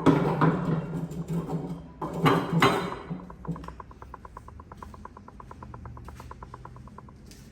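Metal knocks and clinks from hand tools working on a car's rear axle, then a rapid, even clicking at about a dozen clicks a second that stops after about four seconds.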